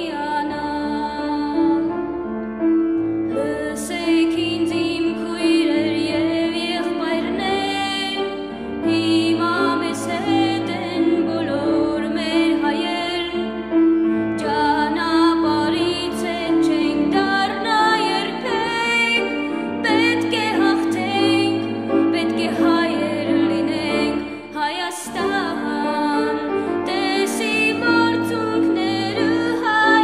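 Background music: a singing voice with vibrato over held accompaniment notes.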